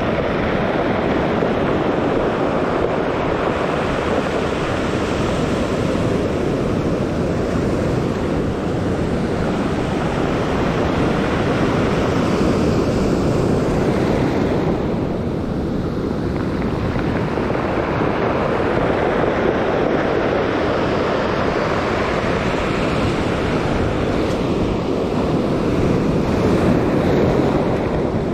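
Ocean surf breaking and washing over a pebble beach: a steady rushing that swells and eases as the waves come in.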